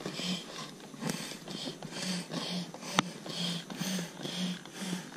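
Hand air pump being worked in quick strokes, about two airy whooshes a second, topping up an inflatable boat that is losing air. A single sharp click about three seconds in.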